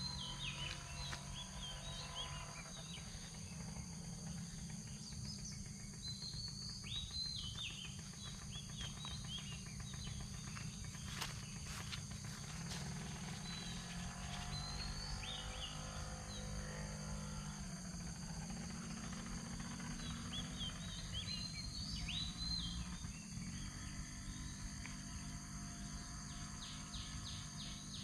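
Small birds chirping in short falling calls, over a steady high insect drone and a constant low rumble.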